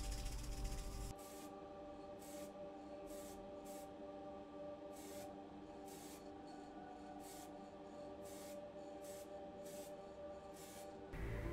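Aerosol can of grey model primer spraying in a dozen or so short hissing bursts, roughly one every half second to a second.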